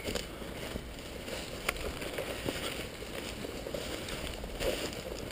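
Footsteps and rustling through leafy forest undergrowth as a person moves on foot, with a brief sharp snap about a third of the way in.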